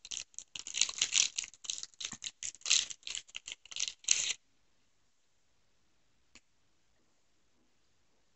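Packaging of a Glico Pretz snack crinkling and rustling as it is torn open by hand: a rapid, dense crackle that stops about four seconds in, followed by one faint click.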